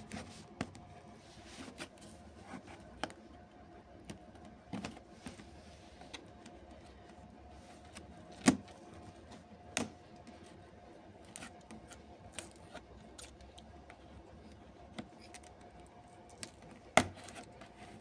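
Nail clippers snipping and picking at packing tape on a cardboard box: scattered sharp clicks and taps, the loudest about eight and a half seconds in and again near the end, over a faint steady hum.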